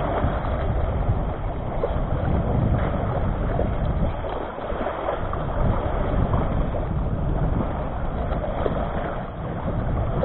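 Wind buffeting the microphone in a steady low rumble, over waves washing against rocks.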